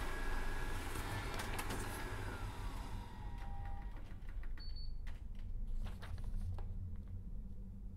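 Dark film sound design: a steady low rumble under a high thin tone that slides slowly downward and fades out, with a few faint clicks scattered through it.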